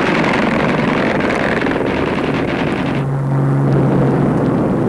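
Heavy bomber's piston engines droning loudly, heard from inside the aircraft. A harsher rushing noise drops away about three seconds in, leaving a steadier low drone.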